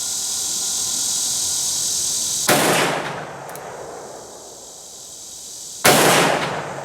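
Two shots from a Ruger Single Seven revolver in .327 Federal Magnum, about three seconds apart, each a sharp crack with a ringing tail that fades over about a second. The loads are hot Federal 100-grain jacketed soft points.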